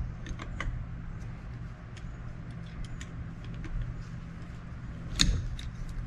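Light metal clicks and ticks of a wrench being worked on a stuck, Loctited fastener, with one louder knock about five seconds in, over a steady low hum.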